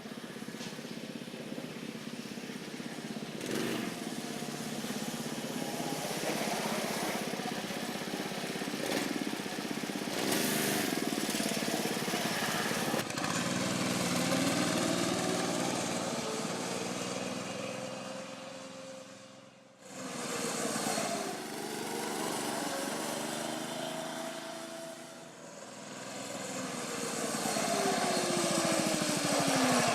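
Mini bike's 212cc Predator single-cylinder engine running, its pitch rising and falling as the throttle opens and closes. It almost drops out for a moment about two-thirds of the way through, then comes back and runs down in pitch near the end.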